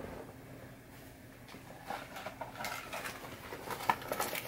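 Faint off-camera handling noises: light rustling and small knocks of objects being moved about, with a sharper click near the end, over a faint steady hum.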